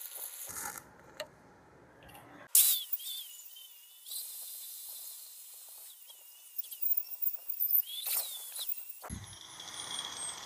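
Angle grinder with a wire wheel brushing slag off a fresh flux-core weld bead on steel plate: a high, wavering whine over a hiss. Near the end the whine falls steadily in pitch as the wheel spins down.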